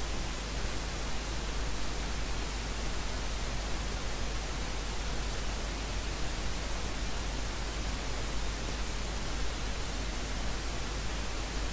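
Steady hiss with a low hum underneath, unchanging throughout: the recording's background noise. No music is heard.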